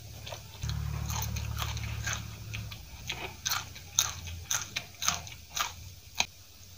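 Close-miked eating: instant masala noodles being chewed, then crisp crunching bites into a raw green chilli. The sharpest crunch comes about four seconds in, with several more over the next two seconds.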